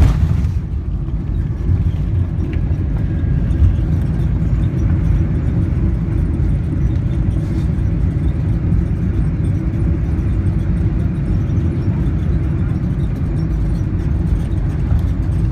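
Boeing 747-400 on its landing rollout, heard from inside the cabin: a loud, steady low rumble of the engines and the landing gear rolling on the runway. A short thump comes right at the start.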